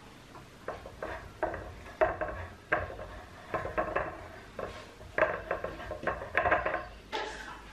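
Metal muffin tin clanking and knocking on the table as puff pastry rounds are pressed into its cups: a dozen or so irregular knocks, each with a short ring.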